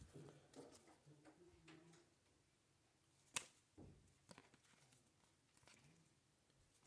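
Near silence with a few faint clicks and slides of glossy baseball trading cards being flipped through by hand. The sharpest click comes about three and a half seconds in.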